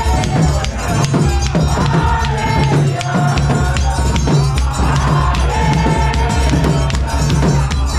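Church song: voices singing over a steady beat of deep bass and drums, with sharp percussion hits throughout.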